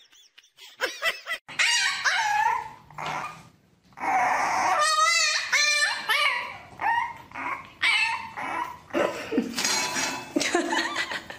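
A puppy whining and yipping in short, high cries mixed with barks, with a run of wavering cries about five seconds in.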